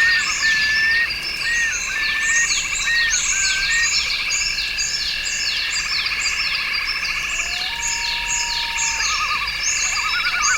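Night-time-style chorus of frogs and insects: a steady dense trilling with rapid high calls sliding downward two or three times a second. Short bird whistles come in the first few seconds, and one long held whistled note comes near the end.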